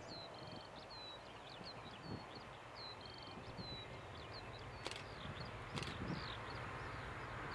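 Small birds singing in short, repeated chirps, while the low rumble of a Class 66 diesel locomotive's two-stroke V12 engine builds faintly in the second half as the train approaches. Two brief clicks come near the end.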